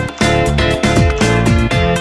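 Background music with a steady beat, its bass notes falling in pitch about every half second.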